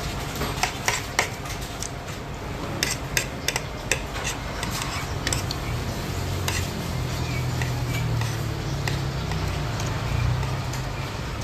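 Spoon and fork clinking against a plate, in a string of sharp taps over the first half. About halfway in a steady low hum sets in.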